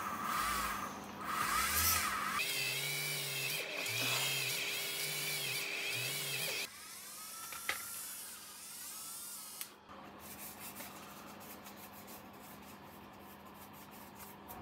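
Small handheld rotary tool whirring as it drills holes through a plastic model wing, its pitch wavering, in a few stretches that start and stop abruptly. About ten seconds in it gives way to quieter light clicks and handling.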